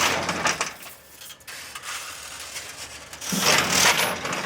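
Heavy crimped wire mesh machine running, with mechanical rattling and rubbing that swells loudly twice, at the start and again about three seconds in.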